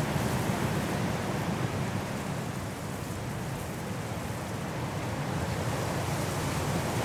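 Strong wind blowing through trees in a snowstorm: a steady rushing roar that eases slightly mid-way and swells again toward the end, with some wind buffeting on the microphone.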